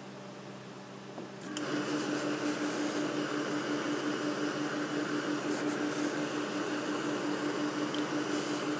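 A tailor's steam iron letting out steam as it presses a suit jacket: a steady hiss with a low hum under it, starting about a second and a half in.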